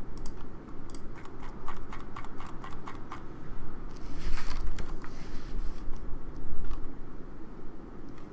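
Scattered light clicks and taps, with a brief rustle about four seconds in.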